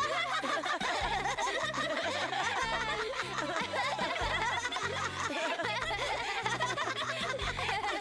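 Laughter from several cartoon voices at once, over background music with a low bass line moving in steps.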